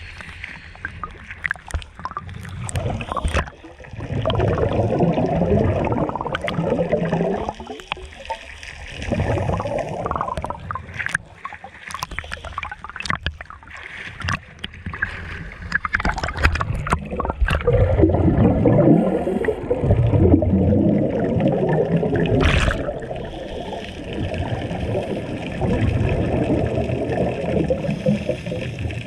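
Sea water sloshing and gurgling around the camera as it rides the waves and goes under, in surges a few seconds long, with scattered sharp clicks and splashes.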